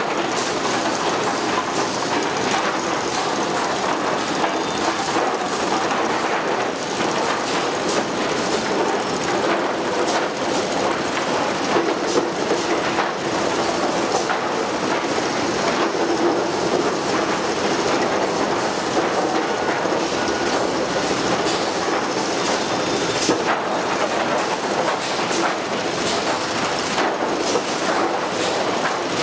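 Sawmill lumber stacking line running: chain transfer conveyors carrying boards into a dual-fork stacker, with a steady mechanical noise and a constant irregular clatter of boards knocking on the chains and steel deck.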